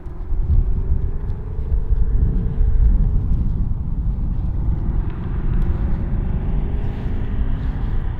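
Shelby GT350's 5.2-litre flat-plane-crank V8 running through a Corsa X-pipe with the resonators deleted, a loud, deep exhaust rumble that jumps up about a third of a second in as the car gets moving.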